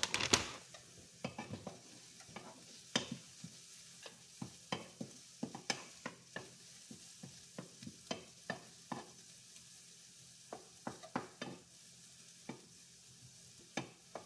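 Wooden spoon clicking and scraping against a frying pan as sautéing vegetables are stirred, in irregular taps a couple of times a second, over a faint steady sizzle of food frying.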